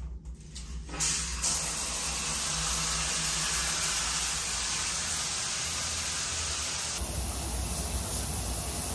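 Shower turned on at the wall mixer valve about a second in, then water spraying steadily onto the tiled shower floor.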